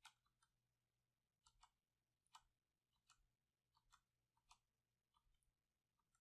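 Faint computer mouse clicks, about ten of them at irregular intervals, over near silence.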